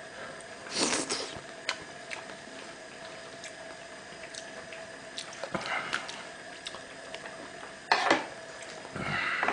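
Kimchi gamjatang with ramen simmering on a tabletop burner: soft steady bubbling with a faint hum from the burner itself. Broken four times by short close eating sounds as steamed egg is eaten from a spoon.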